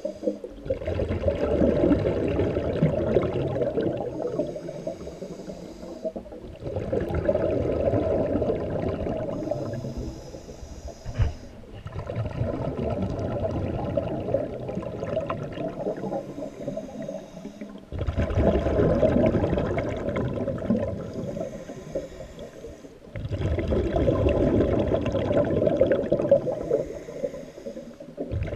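Scuba diver breathing through a regulator, heard underwater: a thin hiss on each inhale, then a bubbling rumble of exhaled air lasting about three seconds. About five breaths, one every five to six seconds.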